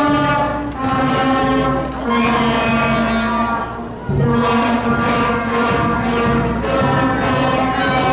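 Student wind band of flutes and clarinets playing long held notes in slow chords, the chord changing every second or two.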